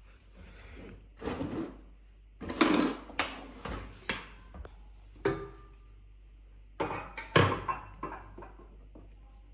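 Dishes and cutlery clattering as food is served: a run of separate knocks and clinks of spoon on pot and plate, the loudest about two and a half seconds and seven seconds in.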